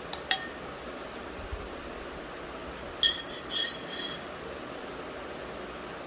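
Light, ringing clinks of small hard objects: one sharp clink just after the start, then a quick cluster of three or four around three to four seconds in, over a faint steady hiss.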